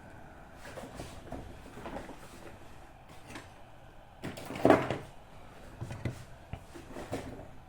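Small handling sounds on a workbench: scattered light clicks and rustles, with one louder scraping rustle lasting under a second about halfway through.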